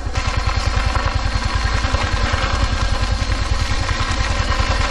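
Yamaha Filano 125cc scooter engine running steadily with a fast, even pulse as it is ridden along a dirt track, under a constant rush of wind and road noise.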